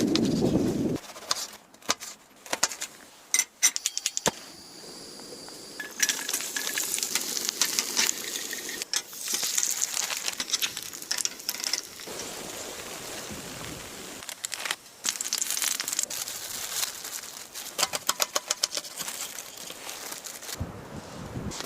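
A run of small sharp clicks and clinks from objects being handled, with stretches of hissing, the loudest of them from about six to twelve seconds in.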